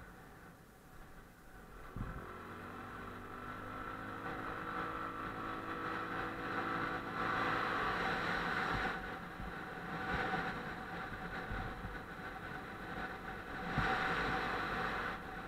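Motorcycle engine heard from the rider's seat, accelerating with its pitch rising steadily after a bump about two seconds in. A louder rushing noise swells twice later on as the bike rides on.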